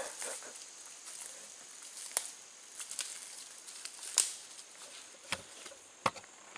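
Footsteps rustling through dry leaf litter and brush, fading as the walker moves off, with a few sharp snaps and clicks scattered through. A steady high insect hum runs underneath.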